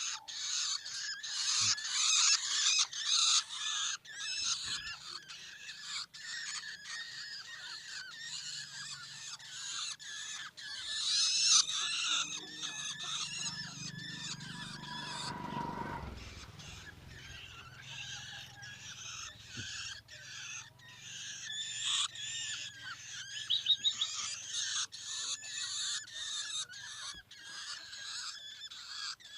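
Long-tailed shrike chicks begging with loud, harsh, rapid calls that run almost without a break: the noise of hungry young birds. About halfway through the calls ease briefly under a low rumble.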